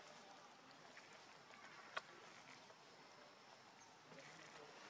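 Near silence: faint outdoor background hiss, with one sharp click about two seconds in.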